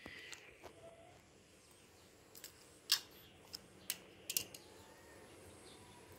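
Faint, scattered sharp clicks of small metal hand tools, pliers and side-cutters, being handled and set down on a tiled floor, with the loudest click about three seconds in.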